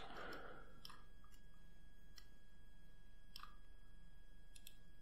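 Faint computer mouse clicks, about five scattered over the few seconds, two of them close together near the end, over a steady low hum and a thin steady high whine.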